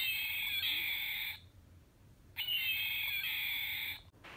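Wild Republic Audubon Birds red-tailed hawk plush toy playing its recorded red-tailed hawk scream through its small built-in speaker, twice, each call about a second and a half long and cutting off sharply.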